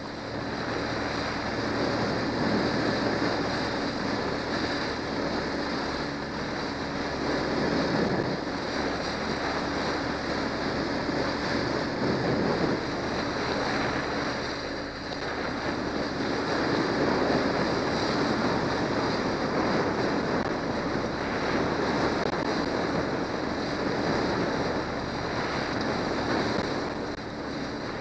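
Motorboat under way on choppy water: wind buffeting the microphone and water rushing and slapping against the hull, rising and falling every few seconds, over the steady running of a Johnson 90 hp outboard motor.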